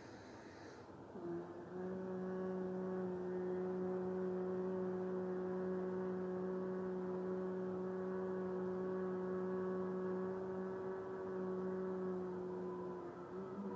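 A woman humming one long, steady note on a slow out-breath in bhramari pranayama (bee breath). After a short in-breath through the nose, the hum starts about a second in and holds an even pitch for around eleven seconds, then wavers and fades near the end.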